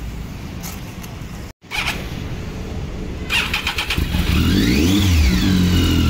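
Triumph Tiger 800's three-cylinder engine cranked by its starter and catching about four seconds in, then given a throttle blip that rises and falls in pitch. A low engine rumble sits under the first seconds.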